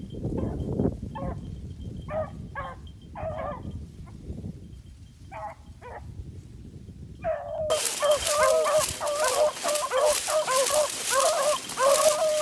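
Hunting beagles baying on a rabbit's trail: at first scattered single bays, then, about two-thirds of the way in, the pack baying together almost continuously over a steady hiss.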